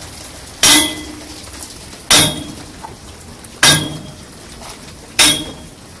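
Hammer blows on metal, four evenly spaced strikes about a second and a half apart, each ringing briefly.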